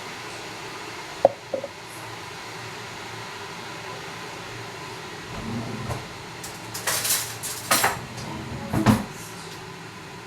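A sharp knock about a second in, then a run of clatters and knocks of hard objects being handled, loudest between about seven and nine seconds.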